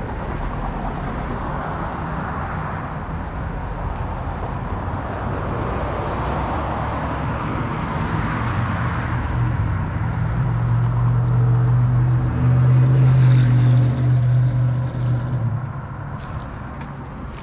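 Road traffic going past on the street: tyre noise swelling and fading, then a vehicle's engine hum that builds to its loudest a little after halfway and dies away near the end.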